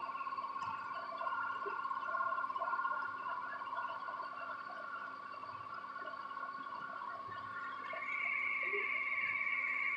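A small electric motor running with a steady, warbling whine of several tones; a higher tone joins near the end.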